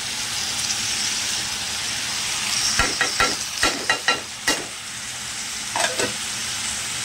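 Boneless chicken and vegetables sizzling steadily in a steel pot on the stove. Sharp metallic clinks sound against the pot as a plate of ground spices is tipped in: a quick run of about six about three seconds in, and two more near the six-second mark.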